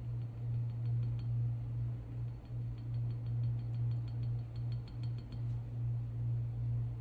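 A steady low hum runs throughout. Over it, a run of faint quick ticks comes through the middle as a cut-down cotton swab stick dabs paint into the engraved lettering of a pistol slide.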